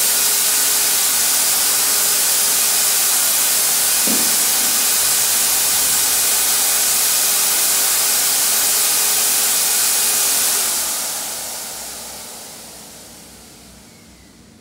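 Harbor Freight Chicago Electric HVLP turbine paint sprayer running: a steady rush of air with a faint whine from the turbine blower. About ten seconds in it is switched off and the turbine spins down, the rush fading away over about three seconds.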